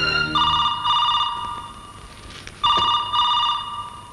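Telephone ringing in a double-ring pattern: two pairs of short rings, the second pair about two seconds after the first. A music cue fades out under the first ring.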